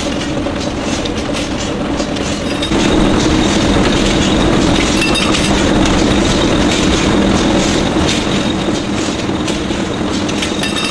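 Continuous match-making machine running, a steady rhythmic mechanical clatter of plates and rollers carrying wooden match splints. It gets louder about three seconds in.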